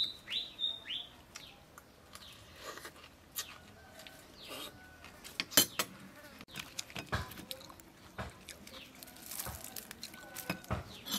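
Small birds chirping in short falling calls, mostly in the first second, with scattered sharp clicks and taps from eating at the table: a spoon in a bowl and fish being pulled apart and chewed.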